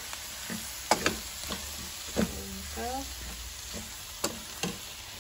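A wooden spatula stirring potatoes, runner beans and tomatoes in a non-stick pan, knocking against the pan several times, over a steady sizzle of the vegetables frying.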